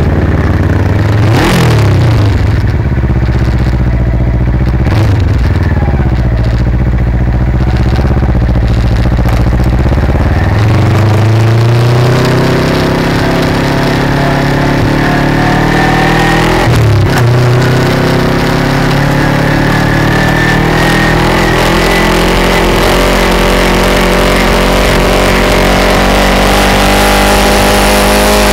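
Kawasaki Ninja 250/300 motorcycle exhaust, heard close up at the aftermarket carbon-fibre muffler as the bike rides away. In the first ten seconds or so the revs rise and drop several times through the gear changes. Then a long, steadily climbing engine note builds at speed, with a quick gear change about two-thirds of the way in, while wind noise grows.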